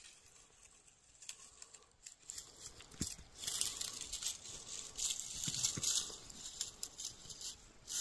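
Irregular crinkly crunching and rustling from someone moving in the snow with the phone, starting about two and a half seconds in, with scattered small clicks.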